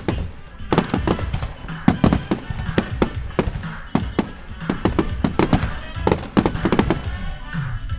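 Fireworks display: a rapid string of sharp bangs, several a second, with music playing alongside.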